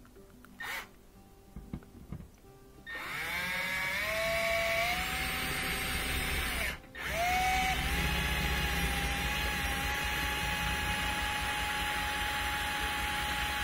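Cordless drill/driver driving screws into a dishwasher's kick panel. After a few light knocks, about three seconds in, the motor whirs up to a steady whine, stops briefly around seven seconds in, then starts again and keeps running steadily.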